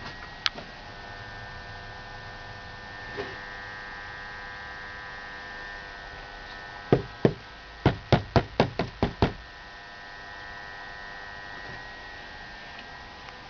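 BMW M54 straight-six engine running with a steady whine and hum. About seven seconds in comes a quick run of about eight sharp knocks over two seconds, louder than the engine.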